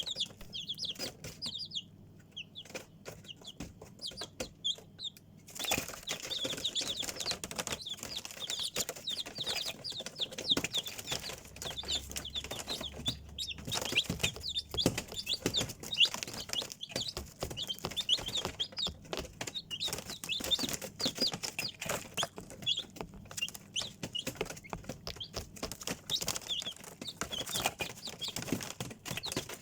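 A brood of young chicks peeping: many short, high cheeps, a few at first and then a dense continuous chorus from about five seconds in, with scuffling and rustling among them.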